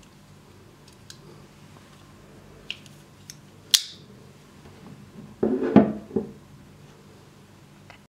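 A black AGA Campolin side-opening stiletto switchblade being closed: a few light clicks, then one sharp metallic click as the blade folds shut. About two seconds later the closed knife comes down on a tabletop with a short, heavier clatter, the loudest sound here.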